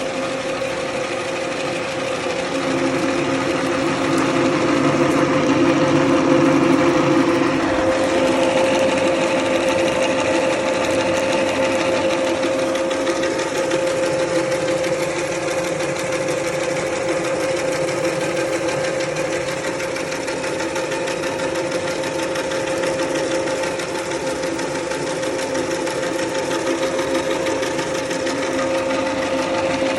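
Small two-cylinder soybean dehulling machine running on test, a steady mechanical whirr with one held tone throughout. It grows louder and fuller a few seconds in and changes texture about 8 seconds in, then runs on evenly.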